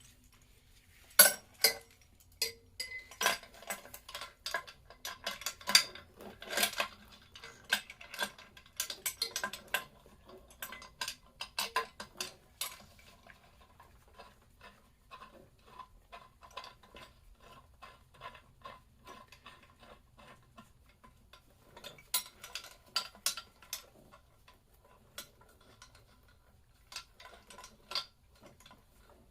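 Metal tools and engine parts clinking and clattering in irregular bursts during hands-on disassembly of a motorcycle engine, busiest for the first dozen seconds, then sparse, with another flurry past the twenty-second mark.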